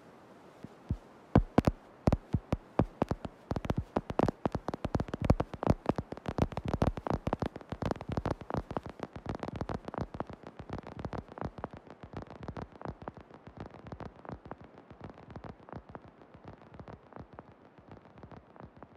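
Electronic music played from a laptop: sharp clicks and crackling pulses, a few at first, thickening into a dense rapid stream about four seconds in, then growing quieter and sparser toward the end.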